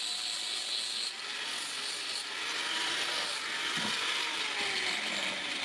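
Angle grinder with a flap disc grinding the steel blade of hand-forged shears: a steady, high grinding noise that changes about a second in and again a couple of seconds later as the disc works the metal.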